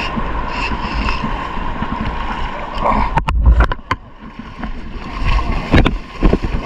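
Sea water sloshing and small waves washing around a wader in the shallows. There are a few sharp knocks and splashes about three seconds in and again near the end, while a small hooked fish is pulled through the surf.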